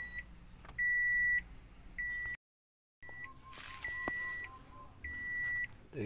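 Electronic warning beeper sounding: a single high tone pulsing on and off about once a second. The sound drops out completely for about half a second near the middle.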